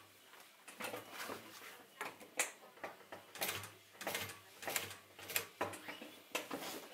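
Industrial sewing machine stitching leather onto canvas slowly, a stitch or a few at a time, as the work is turned at a corner: a dozen or so irregularly spaced mechanical clicks and knocks, with a faint low hum of the motor in between.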